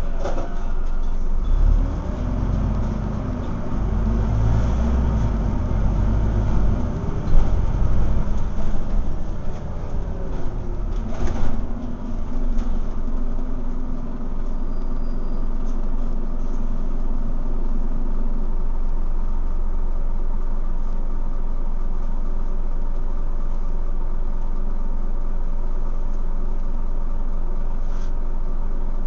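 Scania N230UD bus's five-cylinder diesel engine heard from inside the cabin, working hard with its pitch rising and dropping over the first dozen seconds. It then settles to a steady drone for the rest of the time. There is a single sharp knock about eleven seconds in.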